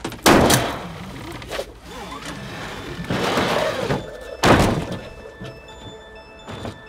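Two heavy thunks, one just after the start and a second about four and a half seconds in, over film score music.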